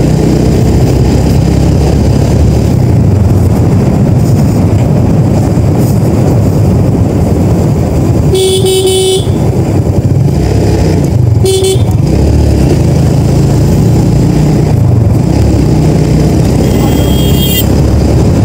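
TVS Metro Plus 110 cc single-cylinder motorcycle engine running steadily under way, mixed with wind rush on the helmet-mounted microphone. A vehicle horn sounds for about a second roughly eight seconds in and again briefly a few seconds later, and a shorter, higher-pitched tone comes near the end.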